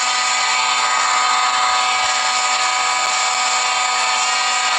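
Steady machine hum of an electric motor running, several fixed tones held over a hiss without change.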